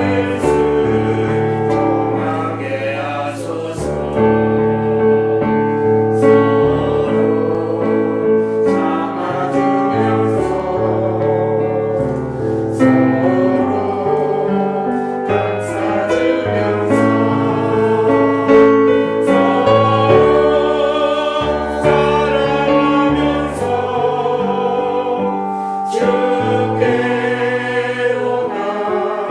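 A small church choir singing a gospel hymn with instrumental accompaniment, the voices held in long notes with vibrato.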